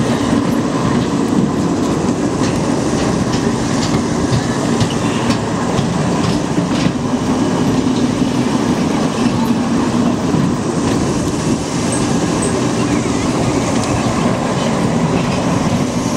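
Small amusement-park roller coaster's cars running along the steel track, heard from on board: a steady, loud rumble of wheels on rails with faint clicks and clatter.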